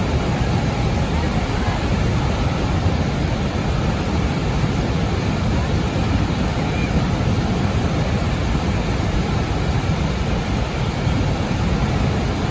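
Niagara Falls' water pouring down in a loud, steady, even rush, heaviest in the low end.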